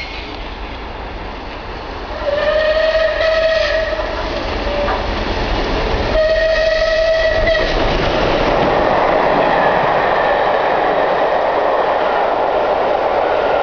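Battle of Britain class 4-6-2 steam locomotive 34067 Tangmere sounds its whistle twice as it approaches: one long blast about two seconds in and a shorter one about six seconds in. The engine and its carriages then run through at speed, a loud steady rush of wheels on rails.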